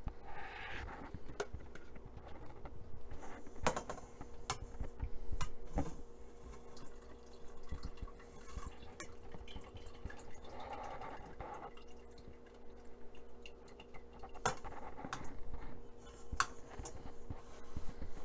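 Scattered light taps and clicks as a plate and a parchment-wrapped roll are handled on a kitchen counter, over a steady low hum.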